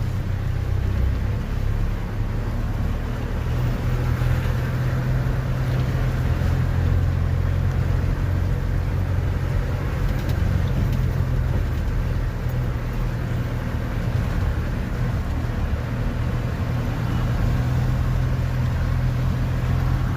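A motor vehicle's engine running steadily, a low hum with no breaks.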